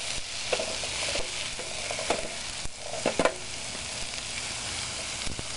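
Diced squash and vegetables sizzling in a nonstick frying pan while being stirred with a plastic spatula, with a few short scrapes and taps of the spatula against the pan over a steady frying hiss.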